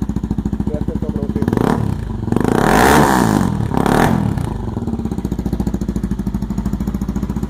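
Honda XRE 300's single-cylinder engine idling through a Roncar two-way aftermarket exhaust with its valve in the sport (esportivo) position. About one and a half seconds in it is blipped briefly, then revved higher for about a second and a half, and it falls back to a steady, pulsing idle.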